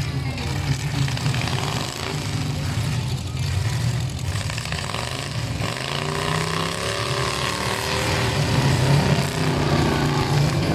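Demolition derby trucks' engines running hard and revving, the pitch rising and falling repeatedly in the second half.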